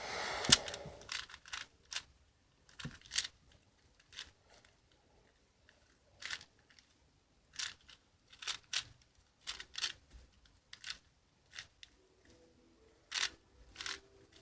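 Rubik's cube being turned by hand: plastic layers clicking and scraping in short, irregular bursts, with a longer scrape at the start.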